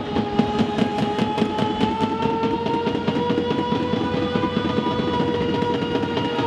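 A long, horn-like tone held without a break, its pitch creeping slightly up and then sinking, over a fast, even clatter of beats.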